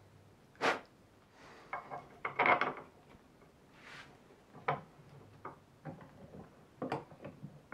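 Scattered knocks, clicks and short scrapes of a steel bolt and a hand file being handled at a wooden bolt-cutting jig, the loudest a short scraping cluster a couple of seconds in.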